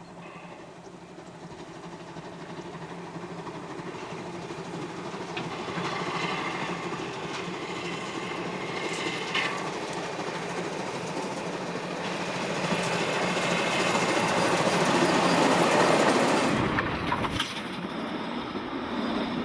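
Narrow-gauge steam train of the Rügensche Bäderbahn (the Rasender Roland) running past, its wheels clattering on the rails. It grows louder to a peak about three-quarters of the way in, then fades quickly.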